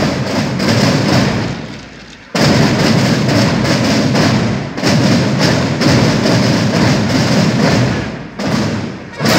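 Massed marching drums of a large war band, snare and bass drums, playing a loud cadence. It breaks off briefly about two seconds in and dips again just before the end.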